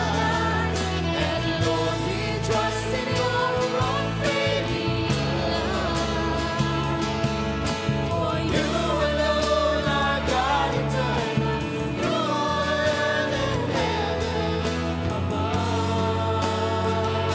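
A live praise band playing a worship song: electric guitars, bass, keyboard and drums under a group of singers.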